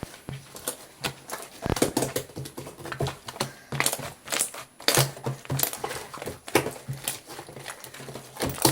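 Slime being squished and stretched by hand, giving a fast, irregular run of sticky clicks and pops.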